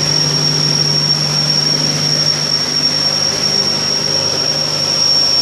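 Motor driving the well pump, running steadily: a constant drone with a thin high whine over it.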